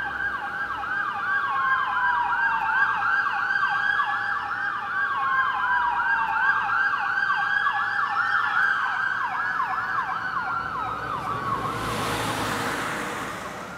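Police escort sirens sounding together, one in a fast yelp of about four to five sweeps a second and one in a slow wail rising and falling every few seconds. A rushing noise swells about twelve seconds in, and the sirens fade away near the end.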